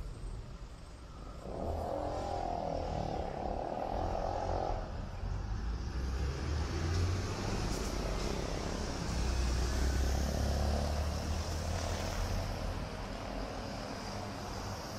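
City street traffic: motor vehicles driving past, with engine and tyre noise. It swells about a second and a half in and stays loud.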